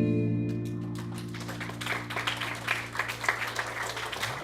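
Last acoustic guitar chord of a song ringing out and slowly fading, while an audience starts clapping within the first second and the applause builds.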